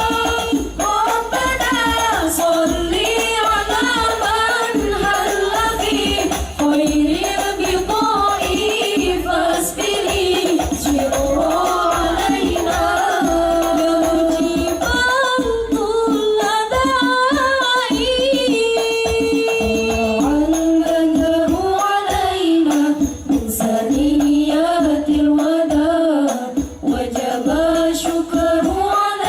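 Hadrah al-banjari ensemble performing: a sung vocal line with long, sliding ornamented notes over steadily played frame drums (terbang).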